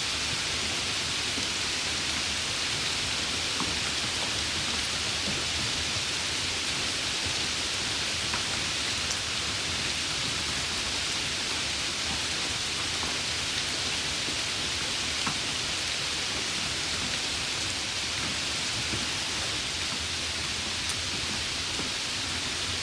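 Steady rain: an even hiss with faint scattered drop ticks and no change in strength.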